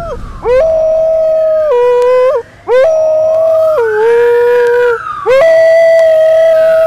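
A dog howling in three long drawn-out howls with short breaks between, each holding a steady note and then stepping down to a lower one.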